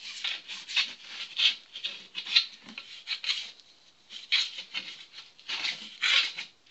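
A paintbrush wet with petrol scrubbed in short, irregular strokes along the bead seat of a steel wheel rim, degreasing the rim before bead sealant goes on.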